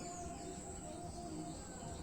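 Faint outdoor background: a bird chirps briefly right at the start over a steady, high insect drone.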